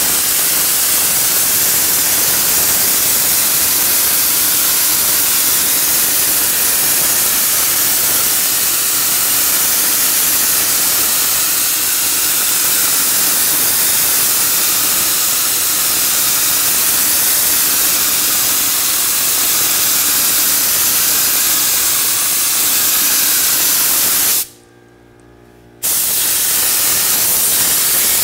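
Air-powered canister spray gun hissing steadily as it sprays glue onto jute carpet padding. The hiss stops for about a second and a half near the end, then starts again.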